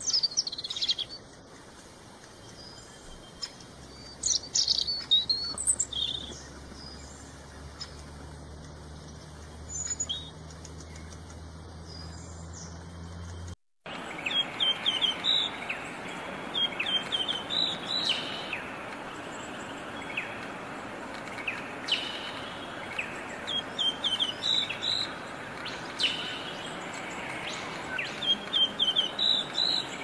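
Small songbird calling: a few scattered high chirps in the first half, then, after a short break, repeated quick runs of three or four descending notes.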